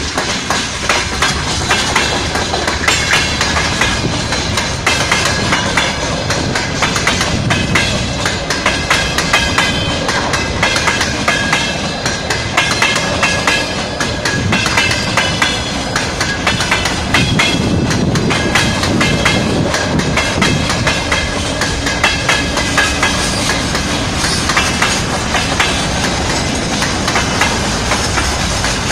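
Freight train wagons rolling past close by, their wheels clattering steadily over the rail joints, with intermittent high metallic squeal from the wheels.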